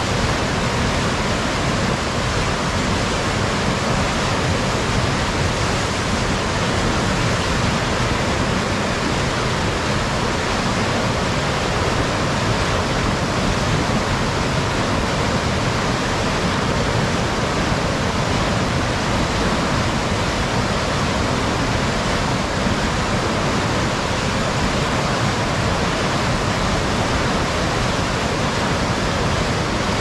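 Rapids on a river in flood: a steady, loud rush of muddy floodwater churning over rocks.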